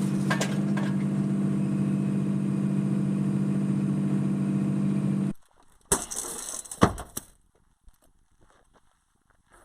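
Skid steer loader's engine running steadily, then shut off suddenly about five seconds in. A couple of sharp metallic knocks follow about a second apart.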